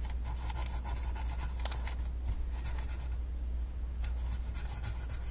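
A pencil writing in cursive on brown paper, the graphite scratching and rubbing across the sheet, over a steady low hum.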